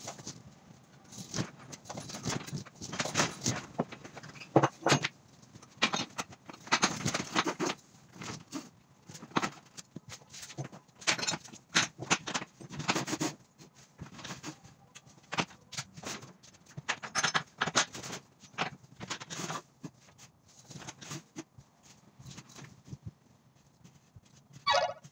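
Ratchet straps being handled and hung on a curtainsider trailer's side rails: metal hooks and ratchet buckles clinking and clattering in irregular bursts of knocks. A brief squeak near the end.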